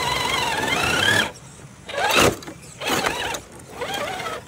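RC rock crawler's electric motor and gearbox whining under throttle as it climbs over rocks. The whine rises and falls in pitch: one long pull for about the first second, then three short bursts of throttle.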